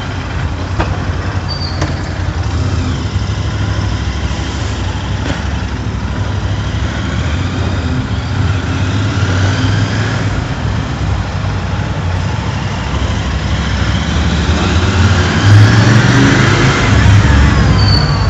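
Motorcycle riding noise heard from inside a full-face helmet: a steady low rumble of engine and wind. It grows louder about fifteen seconds in.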